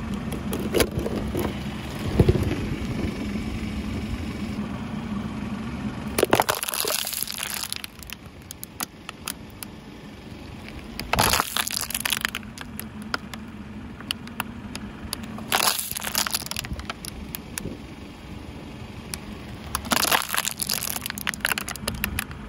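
Car tyre crushing an empty, capped plastic water bottle: loud crackling plastic crunches in four short bursts, about six, eleven, fifteen and twenty seconds in. A low steady engine hum runs under the first few seconds.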